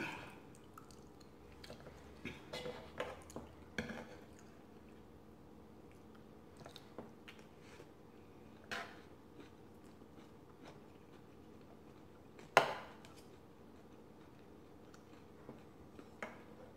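Close-miked eating: quiet chewing and biting with scattered clicks, and a plastic serving spoon knocking and scraping on a food tray. A few clicks come in a cluster early, and one sharp click about three-quarters of the way through is the loudest.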